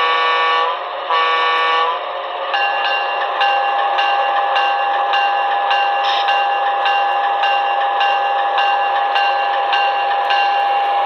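Sound system of a Broadway Limited HO-scale Pennsylvania Railroad GG1 model electric locomotive moving off. Its horn gives two short blasts, the signal for proceeding. Then the bell rings at about two strokes a second over a steady electric traction-motor whine.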